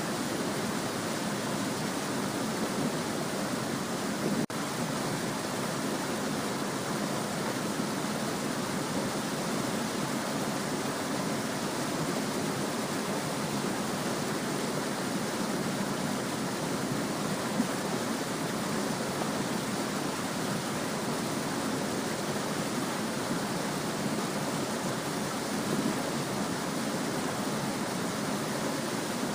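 Small stream running steadily, an even, continuous rush of flowing water.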